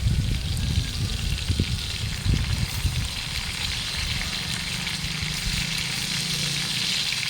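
Marinated food sizzling as it fries in a pan, the hiss growing steadier from about halfway through. A low rumble sits under the first three seconds.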